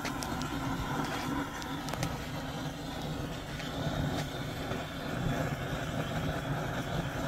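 Wood fire burning under a cooking pot: a steady rumbling hiss with scattered small crackles.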